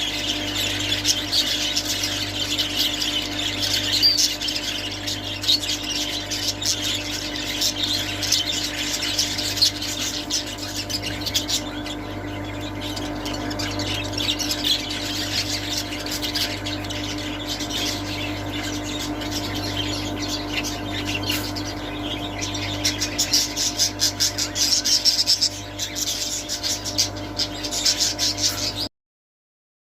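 Budgerigars chattering and squawking in quick, busy bursts over a steady low hum. The sound cuts off suddenly near the end.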